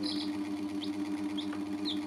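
Chicks cheeping in short high peeps, about four in two seconds, over a steady, pulsing low mechanical hum that is louder than the peeps.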